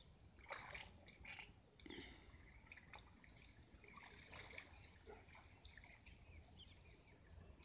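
Faint, irregular splashing and trickling of shallow muddy water as people grope and scoop for fish by hand, with several small splashes scattered through.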